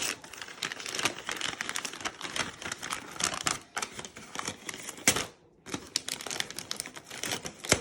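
Gift wrapping paper being torn and crumpled by hand as a present is unwrapped: dense, irregular crackling and rustling, with a brief pause a little past five seconds.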